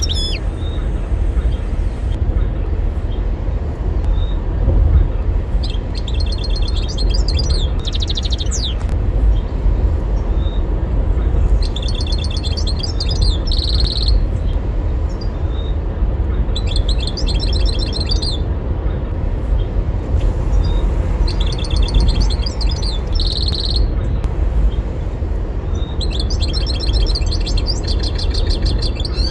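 European goldfinch singing in about five bouts of rapid, high twittering and trills, each a few seconds long, with pauses of a few seconds between them. A steady low rumble runs underneath.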